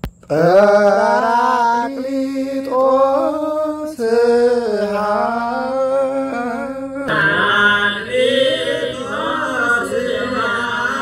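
Unaccompanied Ethiopian Orthodox hymn (mezmur) chanted in Ge'ez, sung in long drawn-out, bending phrases with short breaks between them.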